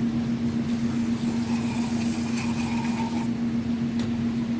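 Aerosol carb cleaner sprayed onto a throttle body in one hissing burst of about two and a half seconds that starts and cuts off sharply, over a steady low hum.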